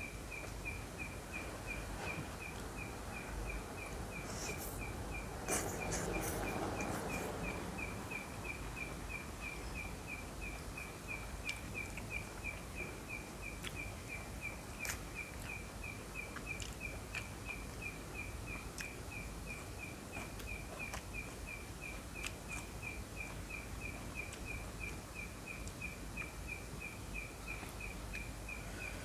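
An insect chirping steadily in a high, evenly repeated pulse of about three chirps a second. A short louder burst of noise comes about six seconds in, and faint clicks are scattered through.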